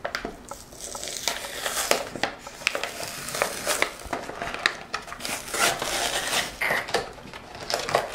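A toy blister pack opened by hand: the cardboard backing card tears and peels away while the stiff plastic blister crackles and clicks, many quick irregular crackles throughout.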